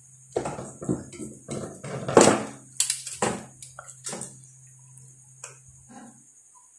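Rustling and clattering of an amplifier circuit board and its wiring being handled inside a sheet-metal chassis: a quick run of knocks and scrapes over the first few seconds. A steady low hum runs underneath and stops near the end.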